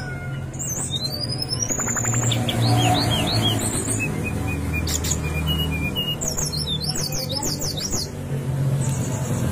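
Brown-chested jungle flycatcher singing in a varied run of phrases: a rising whistle, quick down-slurred notes, then a rapid flurry of high notes. A steady low hum runs underneath.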